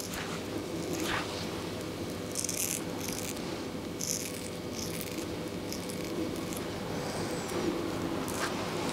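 Straight razor scraping through short beard stubble on the cheek in several short strokes, each a brief crisp rasp, over a faint steady hum.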